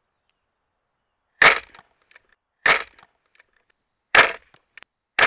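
Gastraphetes, an ancient Greek crossbow, being shot: four sharp cracks of the bowstring and bow slapping forward on release, coming about a second apart, each followed by a few faint ticks.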